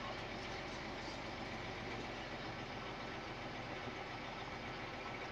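Scania Omnicity bus's diesel engine idling steadily, heard from inside the passenger saloon.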